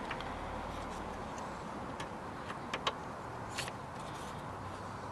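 A few light clicks and taps from small plastic door-trim parts being handled, about two to four seconds in, over a steady low hum.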